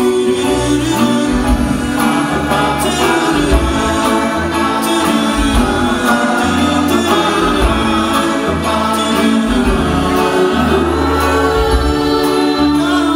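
Live band performing a song, with several voices singing together in harmony over a held bass line.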